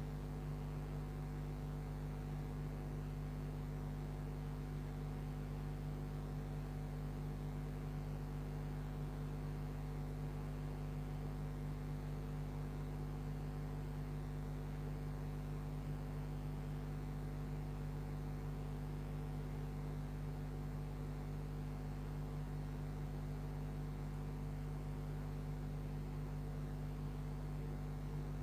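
Steady low hum made of several fixed tones, with a faint hiss over it, unchanging throughout.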